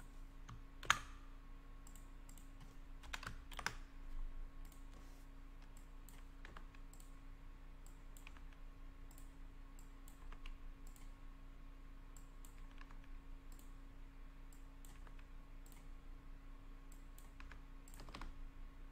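Faint computer keyboard keystrokes and clicks as a spreadsheet is edited: one sharp click about a second in, a few more around three to four seconds, then sparse light taps, over a steady low hum.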